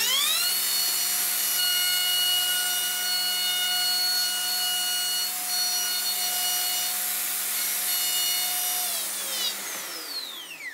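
Festool OF 2200 plunge router starting with a rising whine and running at speed while routing a dado pass in plywood along a guide track. Near the end it is switched off and its whine falls away as the bit spins down.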